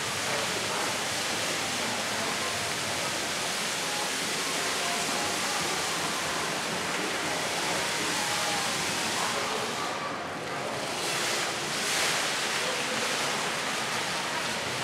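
Fountain water jets spraying and splashing down into the pool, a steady rush of falling water. About ten seconds in it briefly drops, then swells again near twelve seconds as the jets change.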